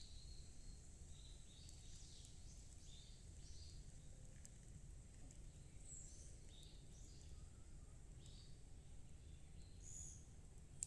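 Small birds chirping faintly in woodland, many short high calls scattered throughout, over a low steady rumble.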